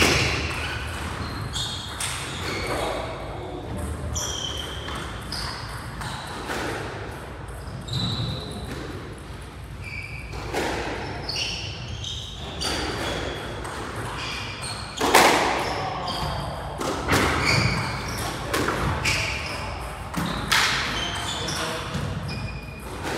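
Squash rally: the ball cracks off rackets and the court walls in irregular sharp hits, with short high squeaks of court shoes on the wooden floor, the hardest hit about 15 seconds in.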